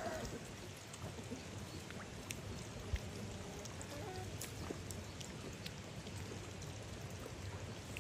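Steady outdoor background hiss with scattered faint clicks and one sharper tick about three seconds in.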